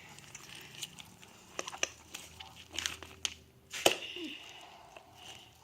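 Homemade glue-and-contact-solution slime being squished and kneaded by hand: scattered sticky crackles and small pops, the sharpest about four seconds in.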